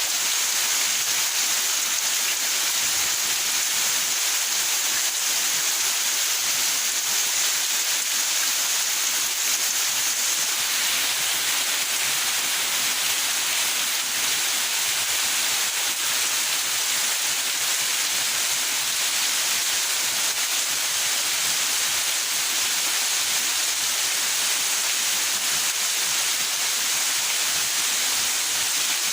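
Steady rain falling in a backyard: a constant, even hiss of rain with no single drops or thunder standing out.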